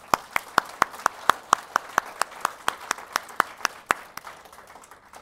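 Audience applauding, with one person's louder hand claps close by standing out at about four a second over the crowd's clapping; the claps weaken near the end.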